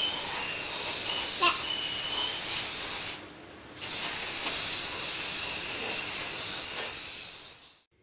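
Aerosol spray paint can hissing as paint is sprayed onto a carton, in a long steady burst, a brief pause a little after three seconds, then a second long burst that fades out near the end.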